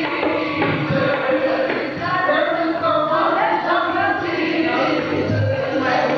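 Sikh kirtan: male voices singing a shabad together to harmonium accompaniment, with deep tabla strokes now and then.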